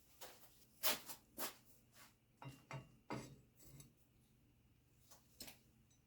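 Hand work on bicycle parts: a run of short, irregular clicks and scrapes, with a pause about four seconds in before a few more near the end.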